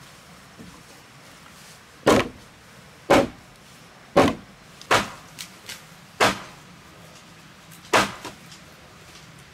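A sledgehammer striking heavy squared wooden beams. There are sharp, hard knocks about once a second, five in a row from about two seconds in, and one more near the end.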